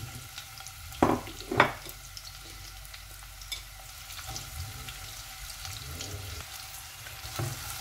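Sliced onions sizzling steadily in hot oil in a cooking pot, with two brief knocks about a second in.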